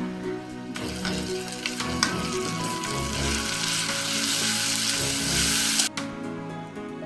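Food sizzling as it fries in hot oil, a dense hiss that cuts off abruptly about six seconds in, with background music underneath.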